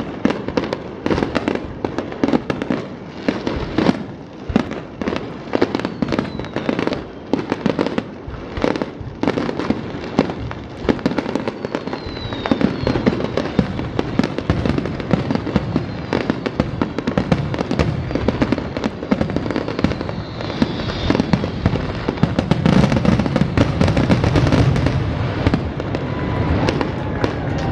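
Aerial fireworks display: shells bursting in rapid, repeated bangs with crackling in between. The bursts grow denser and louder over the last several seconds.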